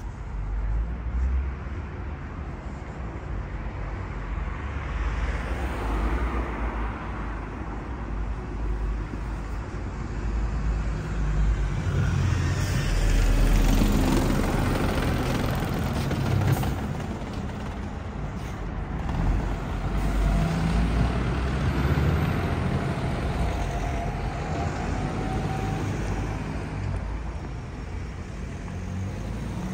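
Street traffic: vehicle engines and tyres rumbling continuously. A large vehicle passes close by about halfway through, its rumble swelling and then fading, and another vehicle swells past a little later.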